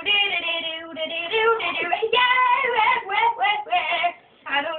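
A child singing, with held notes and sliding pitch, breaking off briefly about four seconds in.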